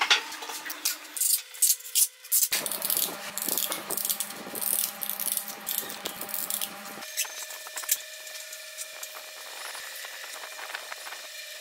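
Hand work on sandpaper and a small wooden hub: the hub rubbed and scraped across a sandpaper sheet, then scissors snipping sandpaper into strips and the strips pushed into slots in the hub, a run of sharp scrapes, snips and clicks. A faint steady hum sits underneath.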